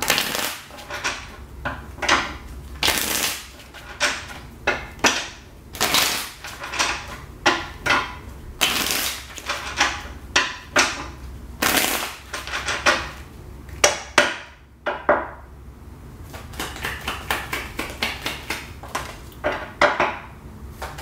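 A deck of tarot cards shuffled by hand on a tabletop: repeated riffle shuffles, each a short rapid flutter of cards, mixed with sharp taps as the deck is squared. Near the end cards are laid down on the table.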